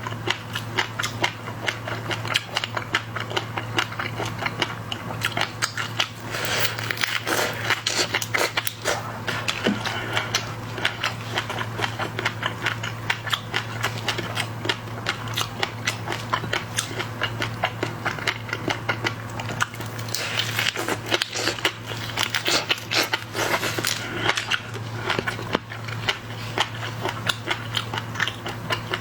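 Dense, irregular crackling and crunching of seafood shells being cracked, bitten and chewed, thicker at times, over a steady low hum.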